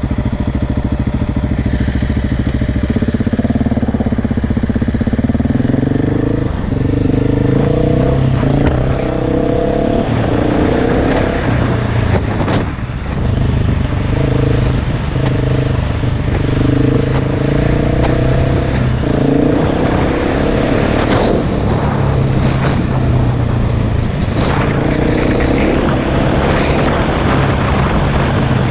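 KTM enduro dirt bike engine running hard, its revs rising and falling in steps again and again. The engine briefly drops off about twelve seconds in.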